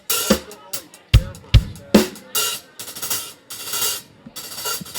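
Acoustic drum kit played on its own: a few kick drum and snare hits in the first two seconds, then about five long, ringing cymbal strokes. This is the drummer playing for the hi-hat check.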